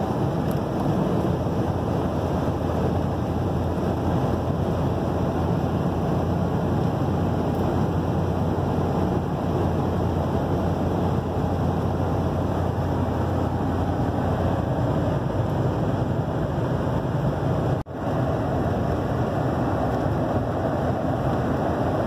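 Steady road and wind noise of a vehicle driving at speed, heard from inside the cab, broken once by a split-second dropout near the end.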